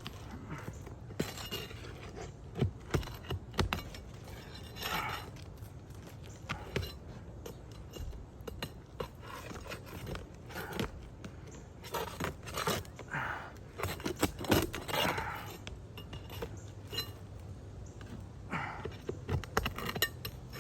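Metal hand tools clinking and scraping against asphalt shingles as the fasteners holding a wind-damaged shingle are worked loose and pulled: irregular clicks and short scrapes.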